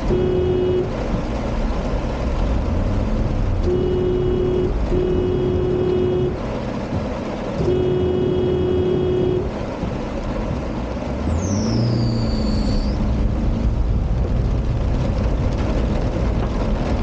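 A car engine running under a steady rushing noise as the car fords a flooded stream in heavy rain, with a vehicle horn honking four times, the last and longest blast about eight seconds in. A brief high squeal follows about eleven seconds in.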